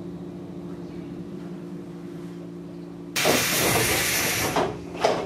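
Steady low hum from a JR 115 series electric train. About three seconds in it is cut across by a sudden loud hiss of compressed air being let out, lasting about a second and a half, and a shorter second hiss comes near the end.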